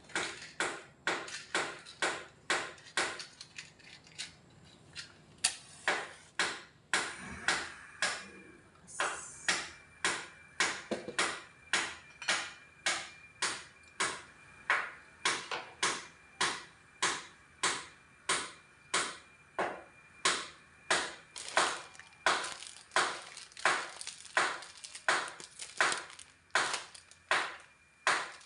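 Knife chopping on a cutting board with a steady run of sharp knocks, about two a second.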